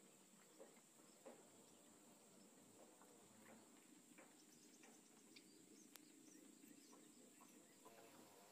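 Near silence: faint riverside ambience with a steady high-pitched hiss and a few faint ticks and chirps.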